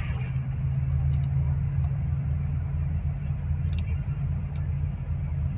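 Low, steady drone of a bus engine and road rumble, heard from inside the moving bus.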